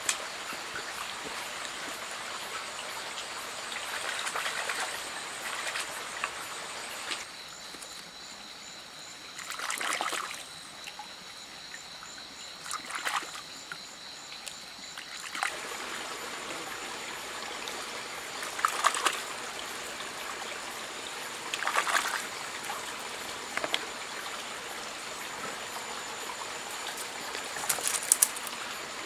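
Small shallow forest stream trickling, with a steady high-pitched trill over it. Now and then there are short splashes and rustles as hands reach into the water and grasses.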